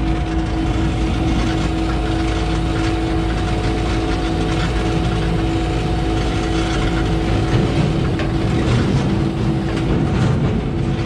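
Concrete pump truck's diesel engine and hydraulics running, a steady whine over a low rumble with some clatter.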